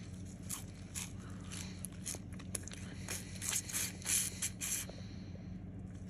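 Chewing on a frozen oat stalk full of icy slush: irregular short crunches, about two or three a second, that stop about five seconds in.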